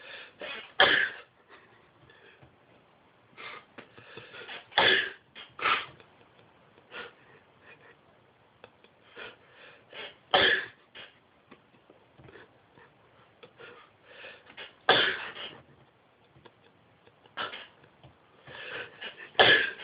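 A man sneezing repeatedly, about six sharp sneezes several seconds apart with softer breaths and catches between them, each sounding much the same. The sneezes are set off on purpose by tickling the nose with a cotton bud.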